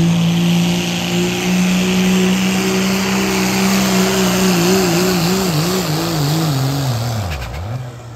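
Pickup truck engine held at high revs under full throttle while pulling a sled. About halfway through, the engine speed wavers rapidly up and down, then drops away steeply near the end as the pull comes to a stop.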